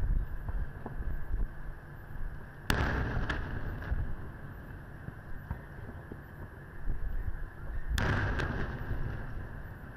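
Two loud booms of aerial firework shells (No. 5 shells) bursting, about five seconds apart, each trailing off in an echo with a couple of smaller cracks after it, over a steady low rumble.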